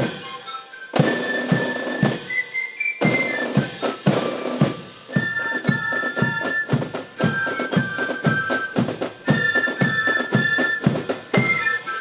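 Fife-and-drum corps playing: a high fife melody in held notes over steady snare and bass drum strokes, with a brief break about two seconds in.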